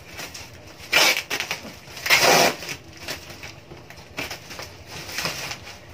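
Packing tape being ripped and peeled off a cardboard box, in a few short rasping tears, the longest and loudest about two seconds in.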